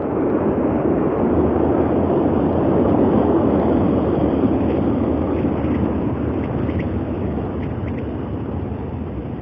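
Rushing roar of a BM-27 Uragan multiple rocket launcher salvo, a continuous noise that swells over the first few seconds and then slowly fades.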